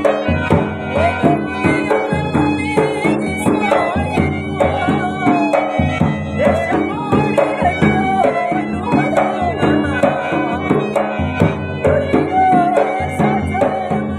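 Rajasthani Manganiyar folk music: a wavering melody over a steady drone, with regular hand-drum strokes keeping the beat.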